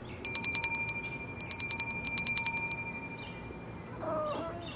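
Small brass hand bell shaken in two quick rapid runs of rings that die away, the signal for the dog to do its business. Near the end comes a short grunt-like vocal sound.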